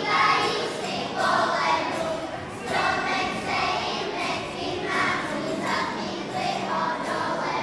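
A group of children singing a song together, accompanied by a strummed acoustic guitar.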